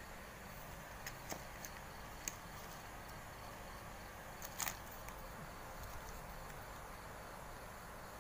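A few small clicks and taps of slingshots and their parts being handled, bunched in the first five seconds, over a steady faint high-pitched background hiss.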